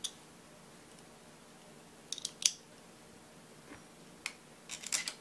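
A few sharp metallic clicks and clinks from a screwdriver and its bits being handled and set down while the rifle is picked up. There is a cluster of clicks about two seconds in, which is the loudest, and another cluster near the end.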